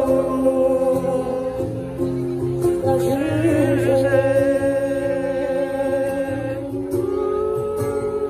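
Music with singing: long held sung notes, one wavering with vibrato a few seconds in, over a steady accompaniment.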